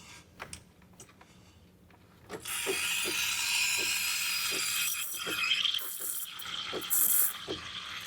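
A compact thermoblock espresso machine's steam wand opens about two seconds in and hisses steadily. Under the hiss the pump pulses about three times a second as it feeds water to the thermoblock to make steam.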